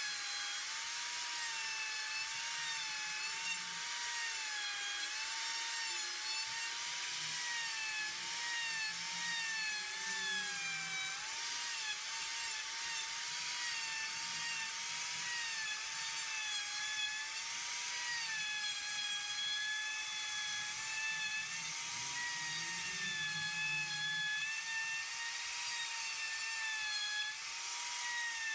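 Die grinder fitted with a 3/8-inch Saburrtooth flame bit, cutting letters into wood. It gives a steady high whine whose pitch keeps wavering and dipping as the bit bites in and eases off.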